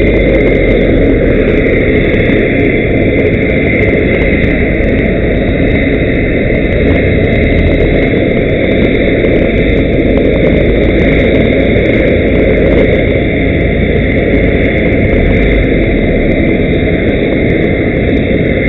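Large aircraft turbine engines running on the ground: a steady, loud drone with a constant high whine.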